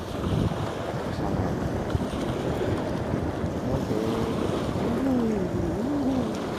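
Wind buffeting the microphone over ocean surf washing onto the beach, a steady rushing noise. A faint wavering tone comes in about two-thirds of the way through.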